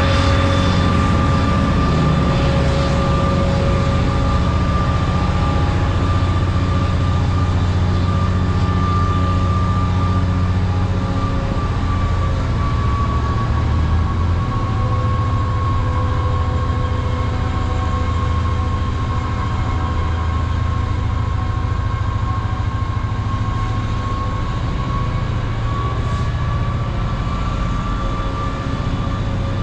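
Diesel locomotive engine running steadily: a deep drone with a high whine over it that sags slightly in pitch midway and comes back up.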